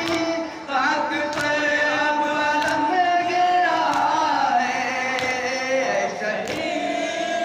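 Men chanting a noha (Shia mourning lament), loud and sung, with the crowd's open-handed chest-beating (matam) landing in unison about every 1.3 seconds.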